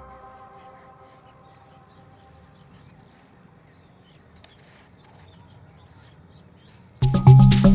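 Faint, scattered chirps of small wild birds over quiet outdoor background, as music fades out at the start. Near the end, loud music with a shaker rhythm cuts in.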